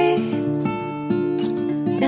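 Background music: a soft song with acoustic guitar playing between two sung lines.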